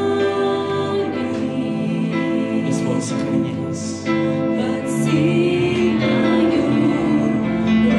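Live worship music: a Korg keyboard plays sustained chords under several singers holding long notes into microphones, with a few sung 's' sounds hissing through.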